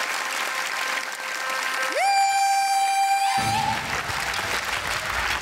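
Audience applauding as a song's intro starts: a single note slides up about two seconds in and is held for about a second and a half, then the backing music comes in with a heavy bass.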